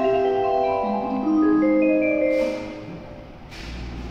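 Station platform melody: a tune of clean mallet-like chime notes over the platform speakers, ending about three seconds in. Near the end a short hiss, then a steady low rumble sets in.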